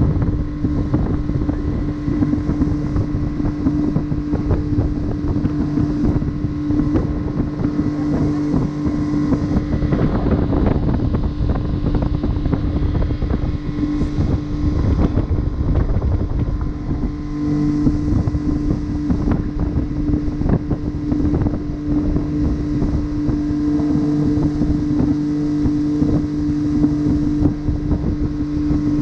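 Outboard motor of a small aluminium fishing boat running at a steady cruising speed, a constant hum holding one pitch, with wind buffeting the microphone.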